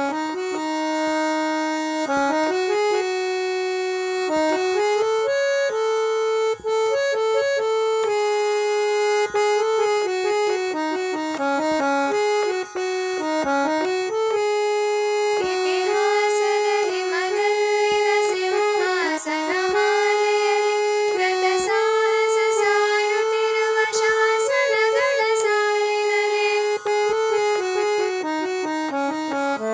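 Instrumental music: a held melody line stepping from note to note. From about halfway, quicker wavering figures and light taps join in.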